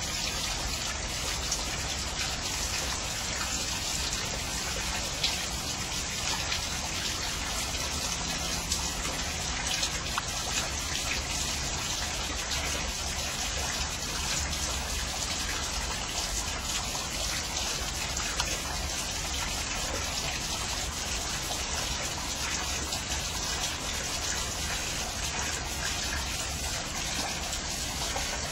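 Rain falling steadily, a constant hiss of water with scattered louder drop hits.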